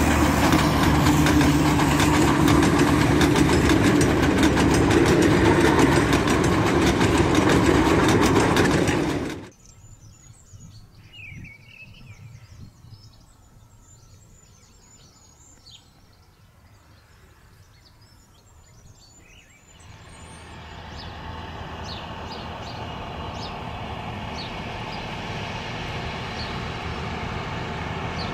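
A Bord na Móna Wagonmaster diesel locomotive running loud and close for about nine seconds, then a sudden cut to a quiet stretch of faint bird chirps. From about twenty seconds in, a narrow-gauge peat train's engine comes in and grows slowly louder as it approaches.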